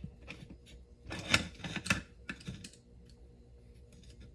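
Vise grips (locking pliers) clicking and knocking against a wheel rim as they are set and clamped on to hold the tire bead, in irregular sharp clicks.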